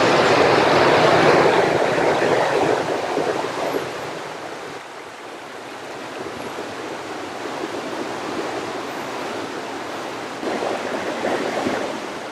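A river flowing over a stony bed: a steady wash of water noise, louder for the first few seconds, then fainter.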